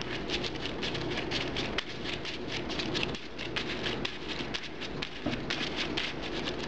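Pokémon trading cards being rapidly flicked through by hand while a deck is searched, a quick patter of small clicks, several a second, over a steady low hum.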